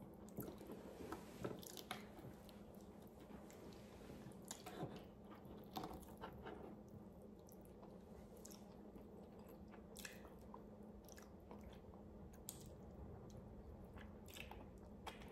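Faint close-miked mouth sounds of eating braised beef stew: chewing and biting tender meat off a beef rib, with scattered soft clicks and smacks.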